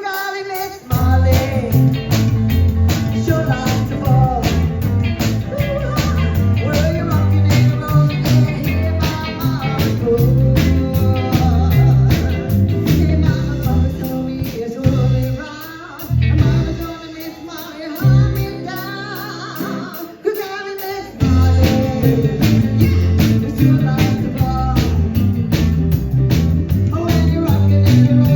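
Live rock and roll band playing with a fast, steady drum beat, bass, guitar and a singer. The band stops short a few times for brief breaks near the middle, then comes back in.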